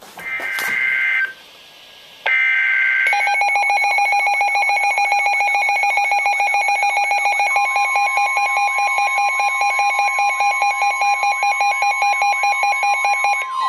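Emergency Alert System SAME header: two short screeching digital data bursts in the first few seconds. A loud, rapidly pulsing electronic alert tone follows, and the steady 1050 Hz NOAA Weather Radio attention tone joins about halfway through, signalling an incoming warning.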